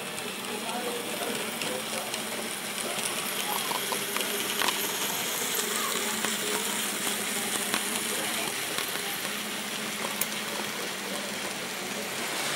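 HO-scale model trains running on a layout: a steady whirring hiss with a few light clicks.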